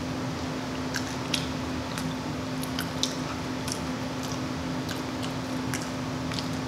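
A person chewing food close to the microphone, with scattered wet smacks and mouth clicks at irregular intervals, over a steady low hum.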